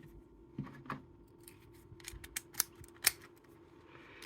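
Brady Safekey lockout padlock being worked with its key: a string of light metallic clicks and ticks at uneven spacing, with one sharper click at the very end.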